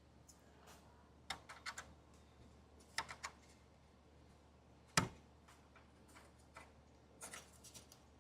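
Small plastic clicks and taps as clips are handled and pressed onto a plastic Jeep grille. There are short clusters of clicks about one and three seconds in, one sharp snap about five seconds in, and a few lighter clicks near the end.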